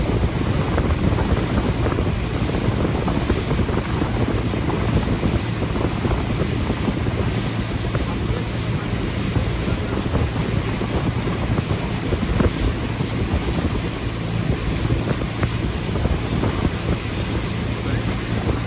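A motorboat under way: its engine runs with a steady low hum, under wind buffeting the microphone and water rushing along the hull.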